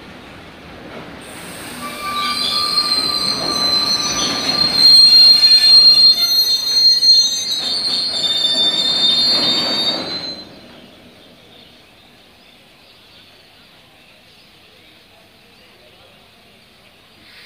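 Steel wheels of a freight train of tank wagons squealing in several shrill pitches over a rolling rumble; the squeal cuts off about ten seconds in, leaving a faint rumble.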